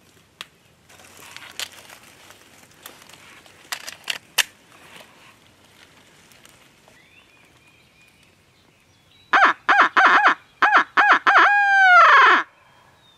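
Barred-owl 'who-cooks-for-you, who-cooks-for-you-all' hoot, loud and close, as blown on a hunter's owl locator call to make roosted turkeys gobble: about eight short hoots ending in one long falling note. Before it, faint rustling steps in dry leaves with a few clicks.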